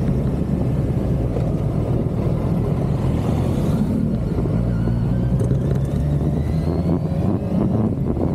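Motorcycle engine running as the bike rides along, picked up by an onboard camera; its pitch climbs gradually in the second half as the bike gathers speed.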